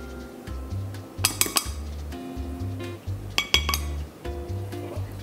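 Metal melon baller clinking against a ceramic dish as mango balls are scooped and knocked out: two short clusters of sharp, ringing clinks, about a second in and again past three seconds, over background music with a steady beat.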